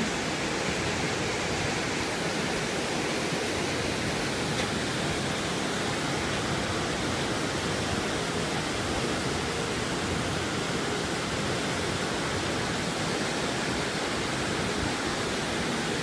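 Steady, unchanging rush of a 25-foot waterfall's whitewater.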